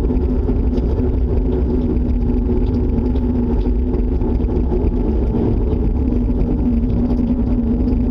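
Loud, steady low roar with a constant hum running through it, never letting up: an unexplained noise that the listener fears is a tornado.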